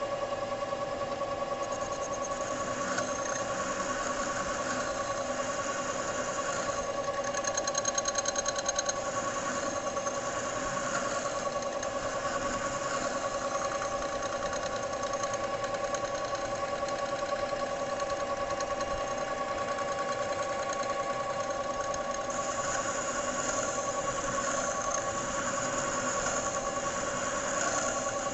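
Metal lathe running steadily while a single-point tool cuts a taper on a metal bar, fed by hand through the compound slide: a steady motor and gearing hum with a scraping cutting noise over it. The cutting noise grows louder and more rhythmic for a couple of seconds about eight seconds in.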